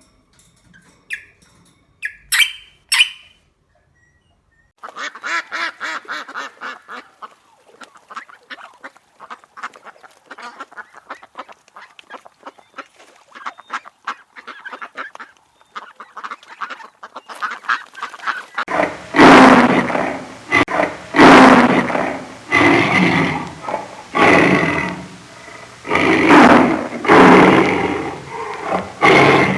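Ducks or geese calling. After a few faint ticks and a short pause, a flock chatters in rapid calls. About two-thirds of the way in, loud calls start, repeated roughly once a second.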